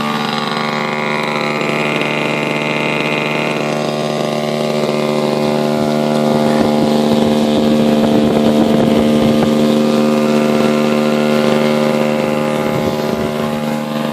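O.S. 65AX two-stroke glow engine of a large RC model warplane idling steadily, turning its propeller at a constant low speed.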